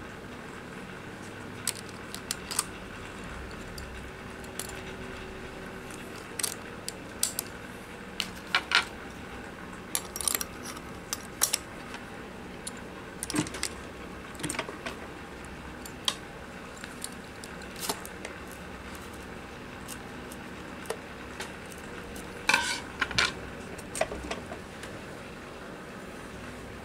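Scattered sharp metallic clinks and clicks of tools and metal parts being handled on an industrial sewing machine during reassembly of its thread trimmer, over a faint steady hum. The clinks come singly and in small bunches, with a quick cluster near the end.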